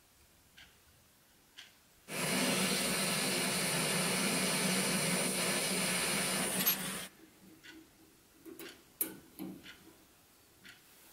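Butane torch flame burning with a steady hiss, starting abruptly about two seconds in and cutting off about five seconds later, as it heats a brass part for soldering. Light ticks and taps from handling small parts before and after.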